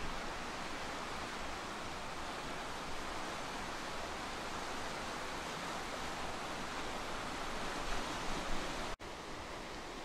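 Sea surf washing against a rocky shore, a steady rushing noise. It breaks off for an instant about nine seconds in and returns a little quieter.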